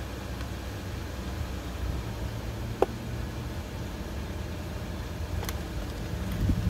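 Steady low outdoor rumble, with one short sharp click a little under three seconds in and the rumble swelling near the end.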